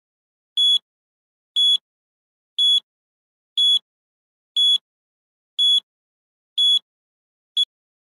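Electronic countdown-timer beeps, one short high-pitched beep every second, ticking off the seconds left to answer. Eight beeps, the last one shorter.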